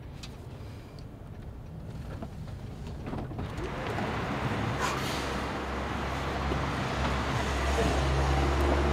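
A van's engine runs with a steady low rumble, muffled at first as if from inside the cabin; about three seconds in, a broad street hiss joins it and the sound grows louder, with a short click about five seconds in.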